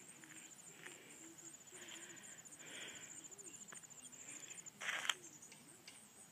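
Faint outdoor ambience with an insect's fast, high-pitched pulsing trill, which stops a little before five seconds in. A brief rustle follows just after.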